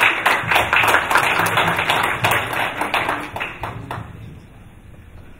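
Audience applauding, the clapping thinning out and fading away about four seconds in.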